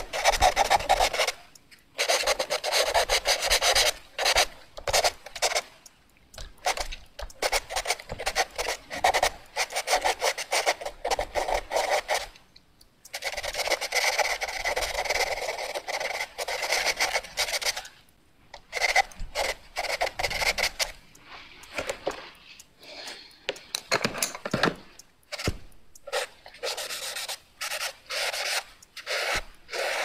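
Pencil drawing fast on paper: rapid scratchy strokes in bursts separated by short pauses, with a longer unbroken stretch of scribbling about halfway through.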